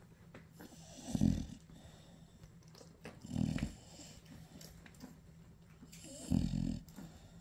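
Nano exotic American bully dog making a low, rough breathing sound three times, about three seconds apart.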